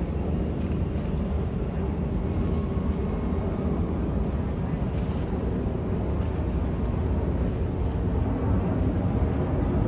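Steady low rumble of outdoor city ambience by the river, with faint voices at times.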